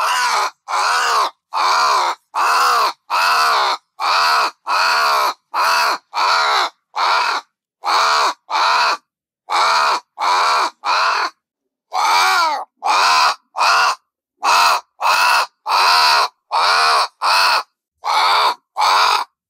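Crow cawing over and over: a long run of harsh caws, each about half a second long, coming a little faster than one a second with complete silence between them.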